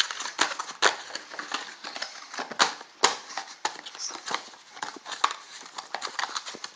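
Cardboard box being opened and its contents handled: irregular knocks, clicks and rustling.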